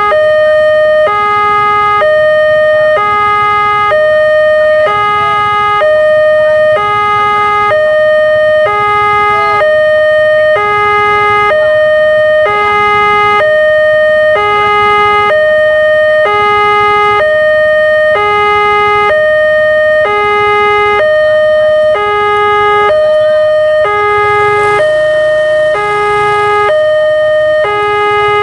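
Railway level-crossing warning alarm, an electronic two-tone signal switching between a higher and a lower tone about once a second. It sounds while the crossing lights flash and the barrier is down, warning of an approaching train.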